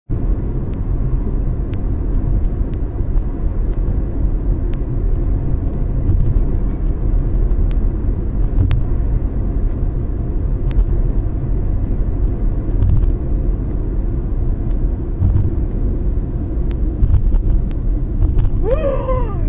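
Steady low road and engine rumble of a moving car, heard from inside the cabin through the dashcam, with a few faint clicks. Near the end a voice briefly exclaims.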